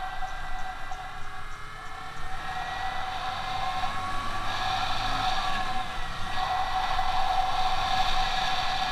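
Yamaha Byson single-cylinder motorcycle engine running under way at a steady speed, with a steady whine over the engine note. It gets a little louder about three seconds in.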